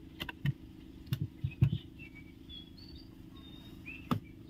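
Light knocks and taps of a wooden ruler and paper pattern being handled on a wooden tabletop: a handful in the first two seconds and one more near the end.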